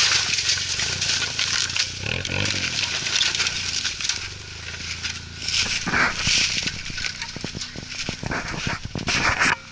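Suzuki Jimny driving through snow off-road: tyres crunching over the snow with many irregular clattering knocks over a low engine hum.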